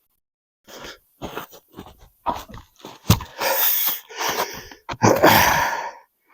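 A man breathing hard, huffing and puffing after shoveling heavy snow, in uneven gasps. The longest, loudest breaths come about halfway through and near the end, with a few short sharp sounds between them.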